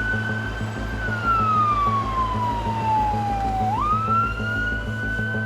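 Emergency vehicle siren wailing in slow cycles. Each cycle rises quickly, holds high, then slides slowly down for a couple of seconds before jumping back up, once near the middle. A low, pulsing rumble runs underneath.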